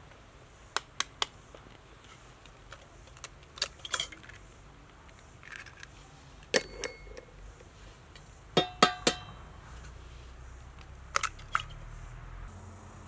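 Eggs being tapped against the rim of a stainless steel mixing bowl and cracked into it: sharp clicks in small groups every few seconds, a few of them leaving the bowl ringing briefly.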